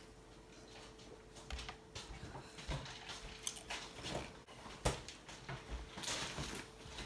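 Eating sounds at a meal of nachos: scattered crunches, mouth noises and small clicks of dishes, with a denser patch of crunching about six seconds in.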